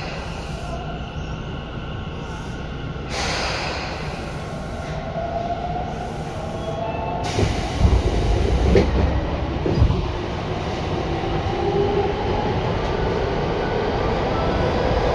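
Tobu 9050 series electric train heard from on board, running through a subway tunnel: a steady rumble of wheels on rail with the traction motors' whine gliding up and down in pitch. A few heavy knocks come about eight to ten seconds in, and the running sound grows louder towards the end.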